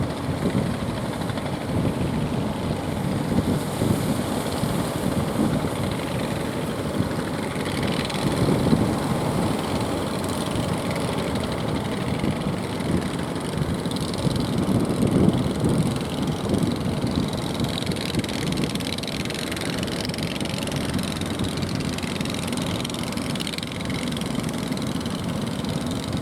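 Motorboat engine running steadily, a rough, continuous drone.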